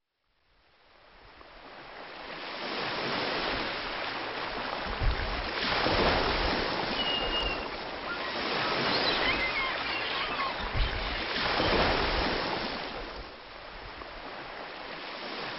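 Small waves breaking and washing up on a sandy beach, fading in from silence. The surf swells twice, about six and twelve seconds in.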